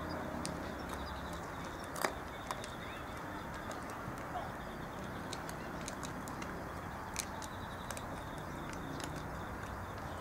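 A domestic cat eating from a plastic dish: scattered sharp clicks of it crunching food over a steady outdoor hiss, the loudest click about two seconds in.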